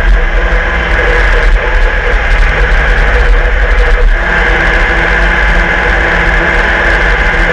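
Walkinshaw VL Commodore Group A race car's V8 running hard at speed, heard from inside the car over heavy road and wind noise, with a change in engine note about four seconds in.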